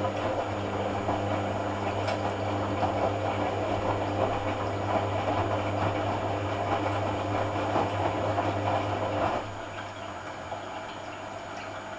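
Hoover AC166 Classica 1200 automatic washing machine during a cotton rinse: water rushing through the machine over a steady electrical hum. Both stop abruptly about nine seconds in.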